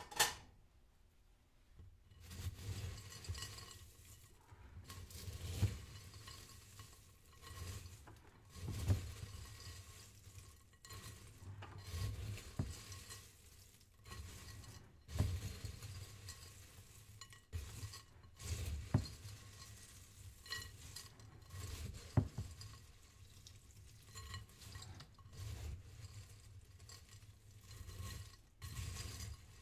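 A single sharp clink, then a utensil stirring and scraping in a bowl in irregular strokes every second or two, starting about two seconds in.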